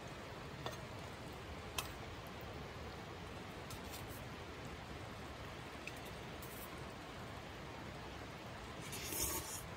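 Sukiyaki simmering in a cast-iron Dutch oven over a small gas stove: a steady bubbling hiss with a few faint pops, and a brief rustle near the end.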